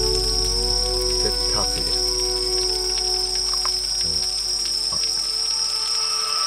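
Crickets trilling steadily in a continuous, high-pitched night chorus.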